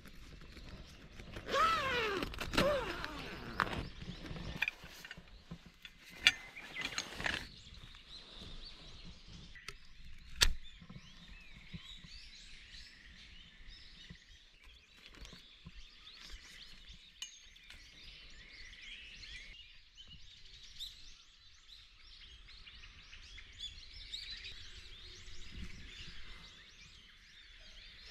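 Outdoor ambience with birds chirping steadily in the background. Near the start there are a few seconds of loud rustling and handling noise, then a couple of sharp clicks and a single knock about ten seconds in.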